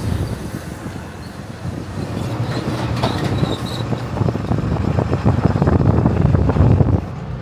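A vehicle towing a loaded dump trailer over rough ground, a steady road rumble with clattering and knocking that grows louder and cuts off abruptly near the end.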